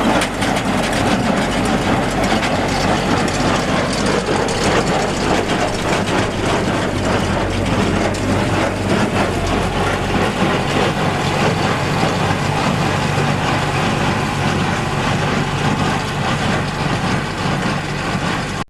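Tractor engine running steadily with a Massey Ferguson 1837 inline small square baler working behind it, its mechanism clattering over the engine. The sound cuts off suddenly at the end.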